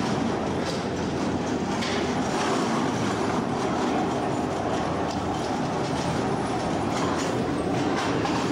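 Ski gondola terminal machinery running: a steady mechanical rumble with occasional clicks and rattles as the cabins roll along the station's overhead track.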